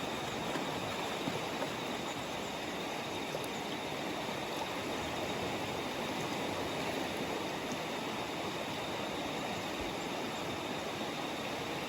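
River water running steadily, an even rushing noise that holds at one level throughout.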